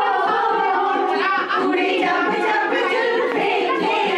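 A group of women singing together unaccompanied, with talking mixed in.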